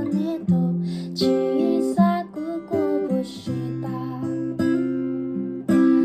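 Acoustic guitar strummed in chords, accompanying a sung cover, with a hard strum near the end.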